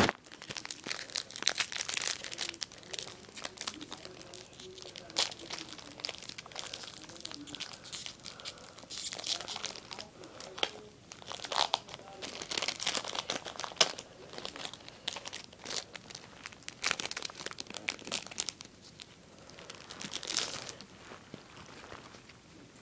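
A foil Yu-Gi-Oh booster pack wrapper being torn open and crinkled, with irregular crackles, rustles and sharp clicks as the pack and its cards are handled.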